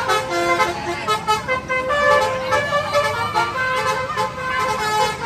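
Tour bus 'basuri' telolet horn, a multi-note musical air horn, playing a tune of held notes that change pitch in steps, with crowd voices underneath.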